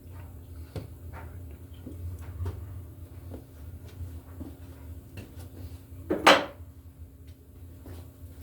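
Wire strippers working on 12-gauge electrical cable: small scattered clicks and handling noises over a low steady hum, with one louder sharp scrape about six seconds in.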